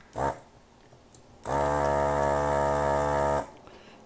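Electric desoldering gun's vacuum pump running, drawing molten solder out of a capacitor's solder joint: a brief pulse just after the start, then a steady run of about two seconds that cuts off suddenly.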